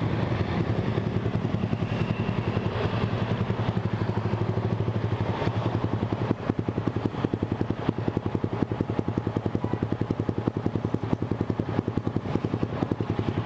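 Yamaha R15 V3's single-cylinder engine idling through an aftermarket Villan exhaust, a steady, even train of rapid exhaust pulses with no revving.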